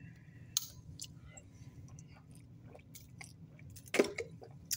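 A plastic soda bottle's screw cap is twisted open, with a brief hiss of escaping carbonation and a few faint plastic clicks. About four seconds in come louder gulps and swallows as the soda is drunk.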